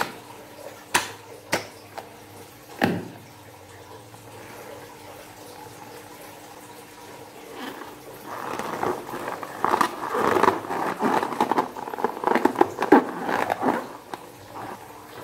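A rubber balloon filled with slime is squeezed and kneaded by hand, giving wet squishing and squelching for about six seconds in the second half. It follows three sharp taps early on and a quieter stretch.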